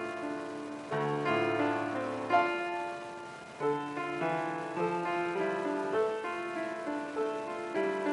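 Piano music: a slow melody moving over held chords.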